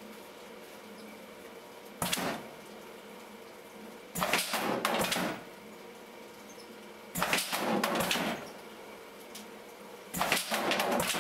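PLUG 1800 stretcher-bar frame assembly machine cycling: about every three seconds a loud burst of clattering, air-driven noise as it pushes four wooden stretcher bars together into a frame, over a steady machine hum. There are four bursts, the first short, the others about a second long.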